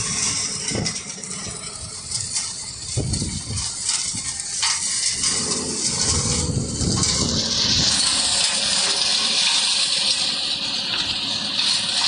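A 2.0 m³ self-loading mobile concrete mixer discharging its mix from the tilted drum down the chute, the machine running under the rough rush of falling material. About six or seven seconds in a steady, loud hiss joins in and stays.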